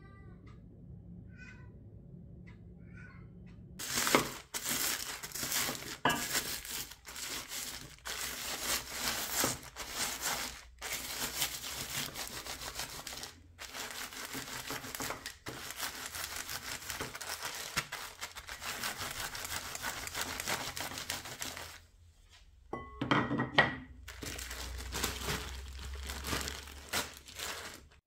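Plastic zip-lock bag crinkling and crunching as the waffle biscuits inside are crushed into crumbs under a wooden rolling pin. It starts about four seconds in and runs in long stretches with brief pauses, stopping once for about a second near the end before a last bout.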